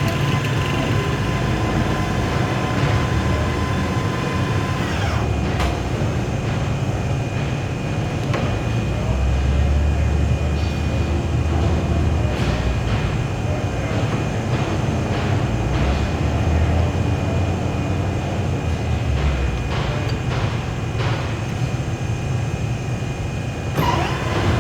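Lathe running steadily with a low hum, with scattered light clicks over the top.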